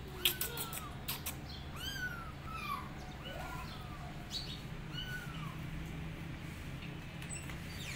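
Young kitten mewing: about six short, high mews that each rise and fall in pitch, most in the first three seconds and one more about five seconds in. A few sharp clicks come near the start, over a steady low hum.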